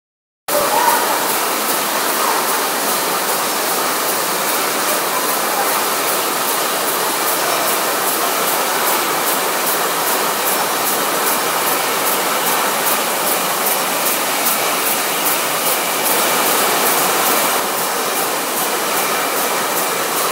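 Bottling and packaging line running: a steady machinery drone with hiss from the conveyor and equipment, carrying a faint regular ticking about two or three times a second. It starts abruptly about half a second in.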